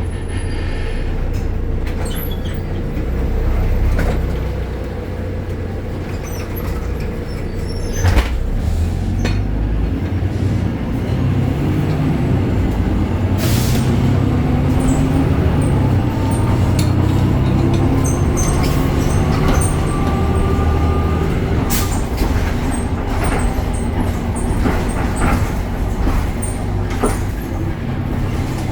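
Interior of a BredaMenariniBus Avancity Plus city bus on the move: the Deutz diesel engine drones and rises in pitch as the bus pulls away and shifts through its ZF automatic gearbox. A thin whine climbs alongside it. Clicks and knocks from loose fittings are scattered throughout.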